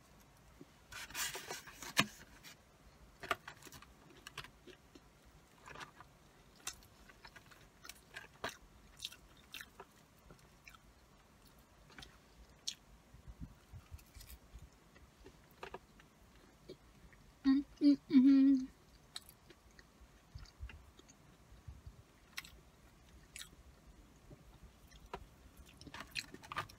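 Close-up chewing of cheesy curly fries, with scattered soft clicks and crunches as bites are taken. A brief hummed voice sound, the loudest moment, comes about two-thirds of the way through.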